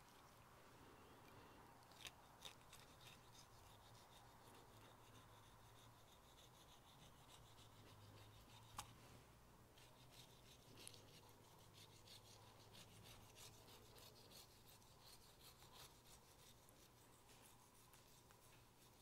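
A long knife scraping and slicing through the fat and meat of a cured Iberian ham leg on its stand, heard faintly as many small scratchy clicks that come thicker in the second half. A low steady hum runs underneath.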